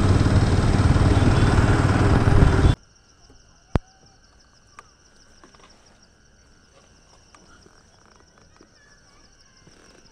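Motorcycle engine and wind noise while riding, which cuts off abruptly a little under three seconds in. Then a faint, steady, high-pitched insect chirring, with one sharp click about a second after the cut.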